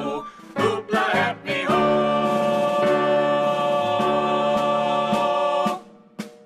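Children's song ending: a short sung phrase, then a final chord of voices and instruments held for about four seconds, stopping abruptly near the end.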